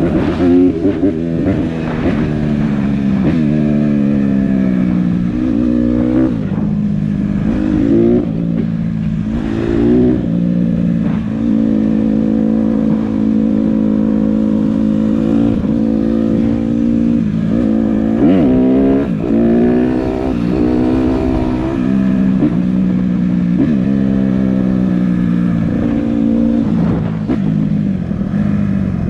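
Honda CRF150R dirt bike's single-cylinder four-stroke engine under way, revving up and dropping back again and again as the rider opens and closes the throttle, its pitch rising on each pull.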